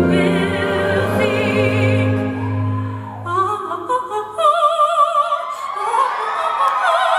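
A woman singing loudly into a microphone in an exaggerated operatic style with heavy vibrato. Steady sustained low backing music plays under her and drops out about four seconds in, leaving the voice alone.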